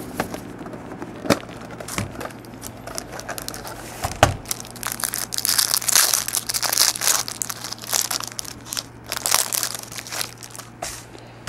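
Plastic wrapping on a trading-card box being torn and crinkled open, with scattered sharp clicks from handling the packaging. The crinkling is busiest in the middle.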